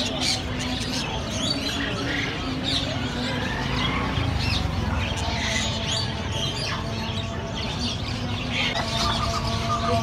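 Many caged finches, zebra finches among them, chirping at once: a steady scatter of short, high, overlapping calls.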